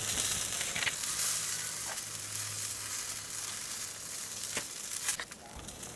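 Chicken drumsticks sizzling on a rack over hot lump charcoal in an open drum cooker, a steady hiss with scattered faint ticks and one sharper click about five seconds in.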